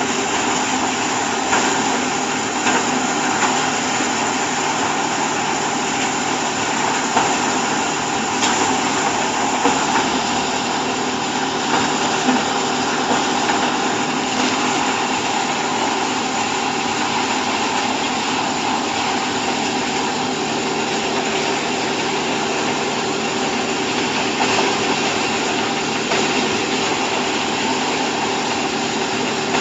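Corn silage baling machine running steadily: an even motor hum with a few brief light knocks.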